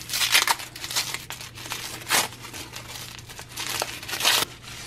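Tissue paper crinkling and rustling as it is unwrapped by hand, in irregular bursts, the loudest shortly after the start, once at about two seconds and a longer stretch near the end.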